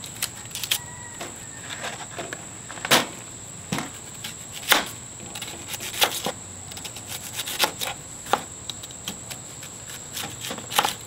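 Kitchen knife slicing a red onion on a plastic cutting board: irregular sharp knocks as the blade hits the board.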